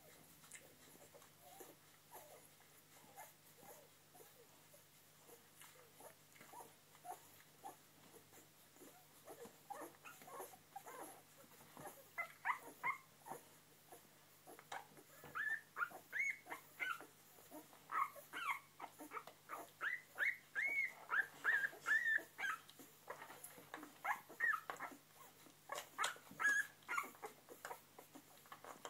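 Newborn Springer Spaniel puppies squeaking and whimpering while they nurse: many short, high squeals one after another, getting busier from about halfway. Under them run soft, quick clicking suckling sounds.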